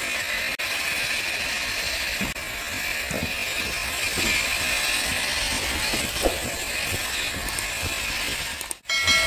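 Traxxas TRX-4 1/10-scale RC truck being driven, its electric motor and gear drivetrain whirring steadily, with a brief break in the sound near the end.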